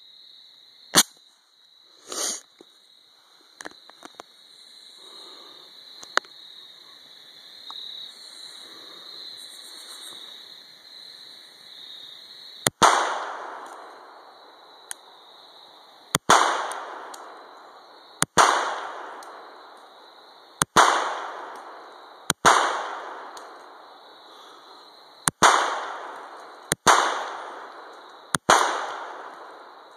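Canik 55 S120 9mm pistol firing 115-grain full metal jacket rounds: eight single shots from about halfway in, one every one and a half to three seconds, each followed by a ringing echo that dies away over about a second. A couple of sharp knocks come in the first few seconds.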